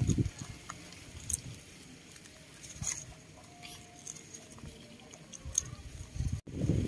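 A baby macaque and a rabbit chewing fresh leafy greens: faint scattered crunches and small snapping clicks of leaves and stems. Low dull rumbles come at the very start and again near the end.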